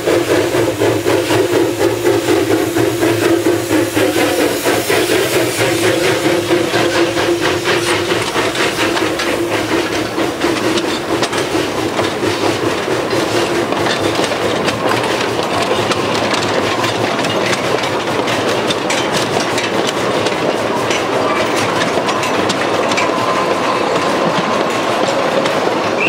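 760 mm narrow-gauge steam locomotive working past at close range, followed by a string of log wagons rolling by with a rapid, continuous clatter of wheels on the track.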